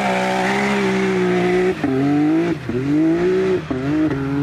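Can-Am Maverick X3 Turbo's turbocharged three-cylinder engine pulling hard under full throttle, running through an exhaust whose catalytic converter has been gutted. The engine note holds high and steady, dropping briefly and climbing again three times.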